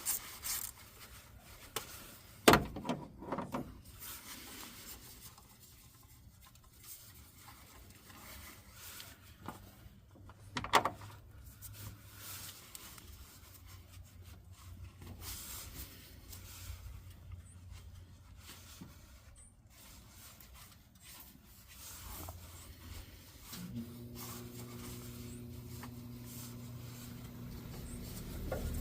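Hand-tool work on a power steering pump line fitting: quiet rubbing and handling of a wrench and parts as a 10 mm bolt is undone, with two sharp metal clanks. A steady low hum starts near the end.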